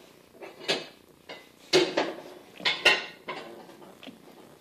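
Metal clinks and clanks from the hand controls of a South Bend 9-inch lathe as they are worked by hand: the cross-feed ball crank and the carriage handwheel. It is a string of sharp metallic knocks, the loudest about two and three seconds in.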